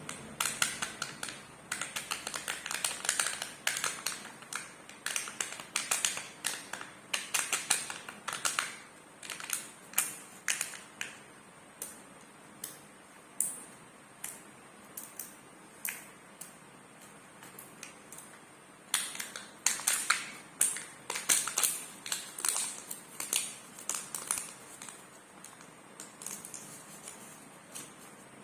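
Kinder egg foil wrappers and plastic toy capsules being handled and opened: dense flurries of crinkling and sharp clicks, with a sparser stretch in the middle.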